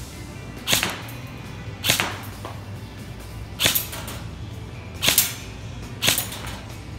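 Toy gun firing five sharp cracks at uneven intervals, a second or more apart, each with a short ring after it.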